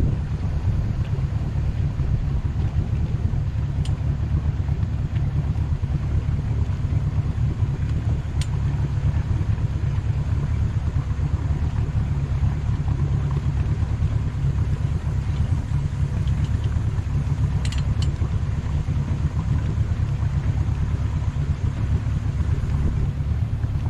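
Boat engine running at low speed, a steady low rumble, with a few faint clicks.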